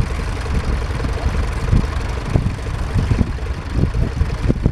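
Standard Fordson tractor's four-cylinder engine running steadily with a low rumble.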